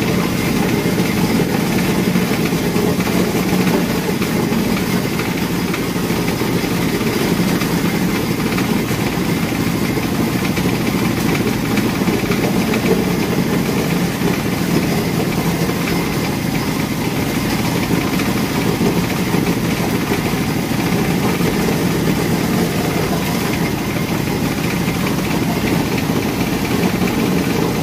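An engine or motor running steadily: a continuous low rumble with no breaks or changes.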